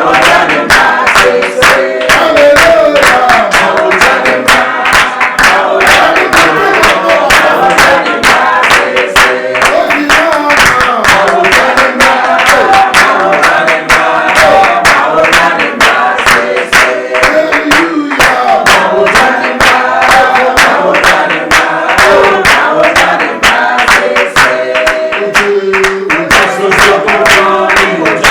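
Music: several voices singing together over a fast, steady, clapped or percussive beat.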